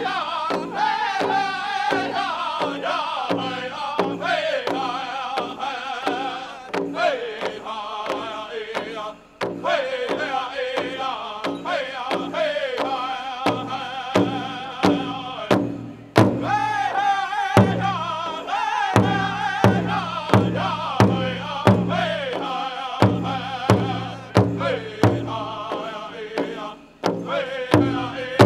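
Powwow drum group singing a prairie chicken dance song, voices in unison over a steady beat struck on a large powwow drum.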